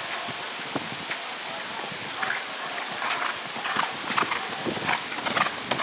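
Horse cantering on grass turf, its irregular hoofbeats getting louder toward the end as it comes closer, over a steady outdoor hiss.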